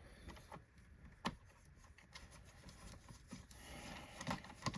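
Faint handling noise of vacuum cleaner plastic parts: scattered light clicks and taps with soft rubbing, a sharper click about a second in and two more near the end.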